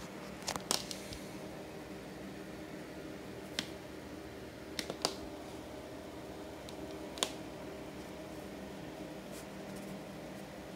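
Steady low hum, with a few faint sharp clicks scattered through: a small cluster just after the start, then single ones about three and a half, five and seven seconds in.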